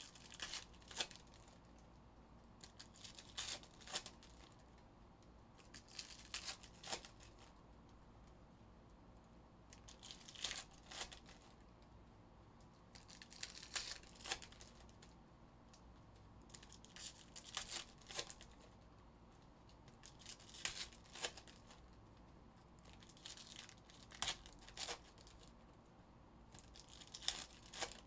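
Foil trading-card packs being torn open one after another, each a short crinkly tearing burst, about every three seconds and about nine in all.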